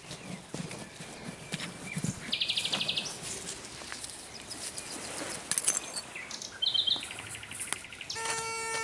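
Common nightingale singing in short, fast trilled phrases, over soft scraping of soil being dug. A little before the end, a metal detector starts a steady, pulsing electronic tone.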